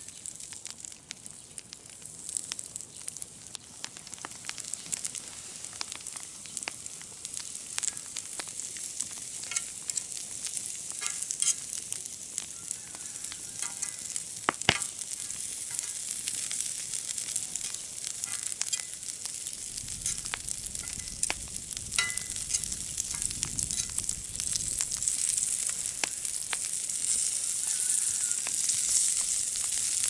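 Sucuk slices sizzling in a cast-iron grill pan over a wood fire, a steady hiss with frequent sharp pops and spits that grows louder toward the end.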